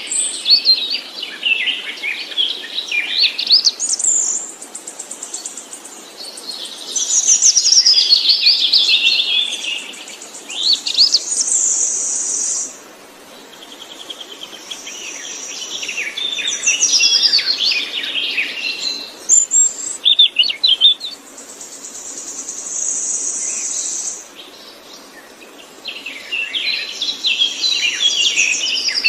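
A songbird singing long, varied phrases of rapid chirps, trills and warbles, with short pauses between phrases. A high, steady buzzing note is held for a second or two about twelve seconds in and again around twenty-three seconds.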